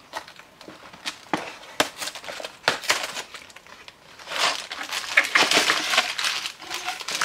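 A cardboard LEGO box being opened by hand: a few sharp clicks and taps as the flap is worked open, then, about four seconds in, a longer spell of crinkling and rustling as the plastic parts bags and booklets slide out of the box.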